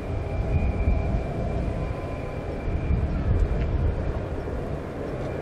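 Jet engines of a Boeing 787-8 airliner rolling out just after touchdown, heard as a steady deep rumble with a faint high whine that fades about halfway through.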